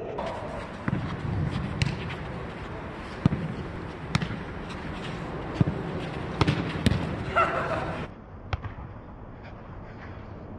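A jokgu ball being kicked and bouncing on the court: a series of sharp, irregular thuds over a steady background hiss, with a brief shouted call about seven seconds in.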